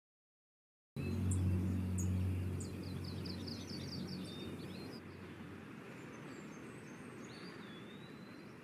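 Outdoor ambience: birds chirping, with a quick run of trilled notes in the first half and a single gliding whistle later, over a steady low rumble that fades away about halfway through.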